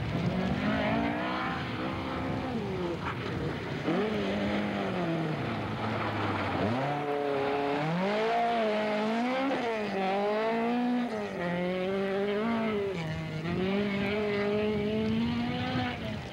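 Rally car engine revving hard on a sprint stage. Its pitch climbs and drops again and again as the driver works the throttle and gears, with a sharp jump up about seven seconds in.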